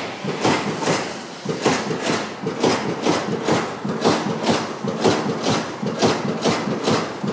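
Amada punch press punching sheet steel, a steady run of sharp metallic hits about two a second, over the running hum of the machine.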